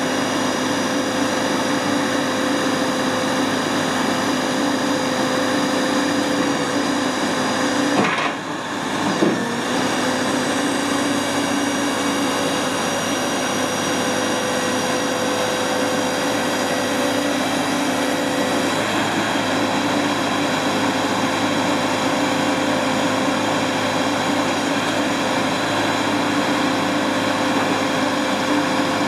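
Caterpillar TL943C telehandler's diesel engine running steadily with a constant whine while its hydraulic boom is lowered, with two short knocks about eight and nine seconds in.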